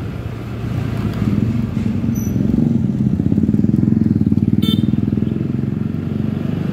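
Motor scooter engine running while riding, pulling harder from about a second in and easing off near the end. A short high chirp sounds about four and a half seconds in.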